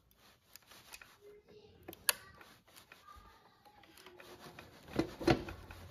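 Handling noise from fingers working a plug-in control board in its slot inside an open solar inverter: light rubbing and small clicks, one sharp click about two seconds in and two louder knocks near the end.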